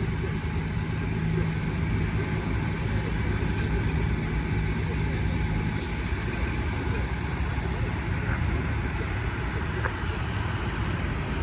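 Steady low rumble of machinery running, with a steady hum that stops about six seconds in and a few faint ticks.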